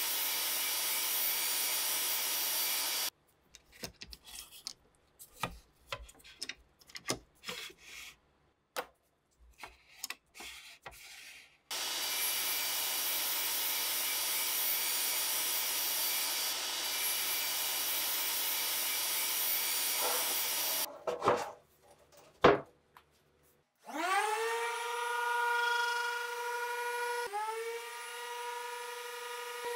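Metabo KGS mitre saw running and cutting through wood strips in two long stretches, with scattered clicks and knocks of handling in between. After two sharp knocks, a Metabo random orbital sander starts with a rising whine and settles into a steady run on a wooden panel near the end.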